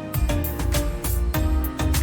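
Background music with a steady beat, bass and pitched instrumental notes.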